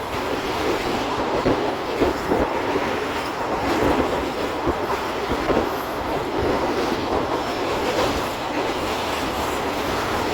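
Passenger train coach running at speed: a steady rumble and clatter of steel wheels on the rails, with irregular clicks over the joints.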